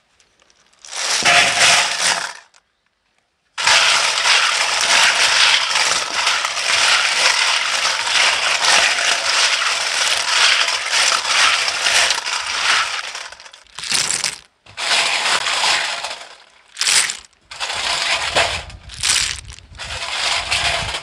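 Small snails being scrubbed by hand in a stainless steel bowl of water: their shells clatter against each other and the metal bowl, with water splashing. The clatter is steady through the middle, then comes in shorter separate bursts near the end.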